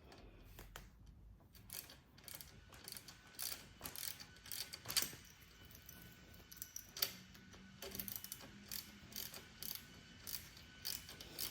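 Light, irregular metallic clicking and ticking of a nut being worked down the long thread of a bicycle brake bolt, with small taps of tool and hardware against the frame.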